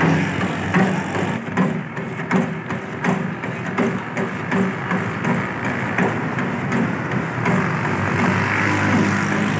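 Motor-driven wooden pestle grinder (ghota) running, churning a thick almond-and-spice paste round a metal basin: a steady low hum with a regular knock a little more than once a second, turning into a steadier grinding noise about halfway through.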